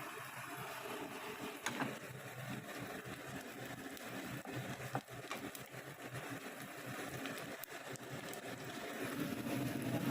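Onions and ginger-garlic paste frying in oil and butter in a pan, stirred with a spatula that taps the pan a few times, over a steady low hum.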